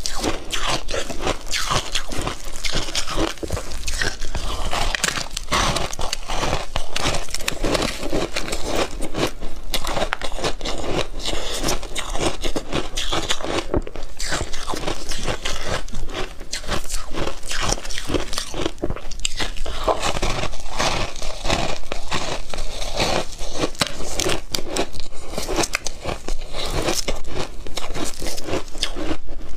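Mouthful after mouthful of crunchy ice, topped with matcha powder and milk cream, being bitten and chewed close to a clip-on microphone: a dense, continuous run of sharp crunches.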